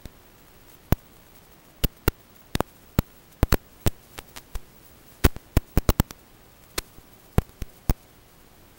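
Static on an FPV goggles' recording: a steady hiss broken by some twenty irregular sharp clicks and pops, bunched most thickly between about three and six seconds in.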